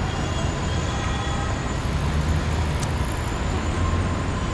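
City street traffic noise: a steady low engine rumble from motor vehicles under a constant wash of road noise.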